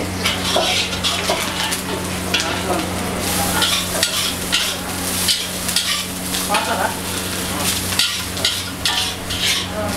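Oil and vegetables sizzling in a large iron wok while rice is stirred and tossed through them with a long metal ladle, the ladle scraping the pan in quick repeated strokes. A steady low hum runs underneath.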